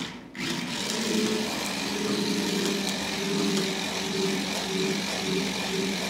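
Remote-control stunt car's small electric motors whirring steadily as it drives across a wooden floor, starting after a brief gap at the very beginning.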